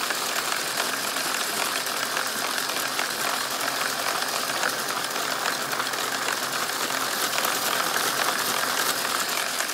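Lego electric motors and gearing driving a toy car wash's spinning brushes and slow conveyor: a steady whirring with a fine, continuous rattle of gears and brushes.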